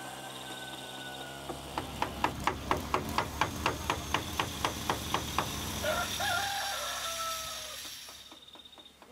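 A rapid, even ticking, about four or five clicks a second, followed about six seconds in by a rooster crowing once, then fading out near the end.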